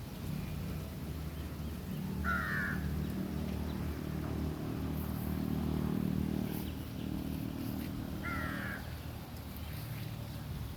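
A crow cawing twice, about six seconds apart, over a steady low hum like a small motorcycle engine idling.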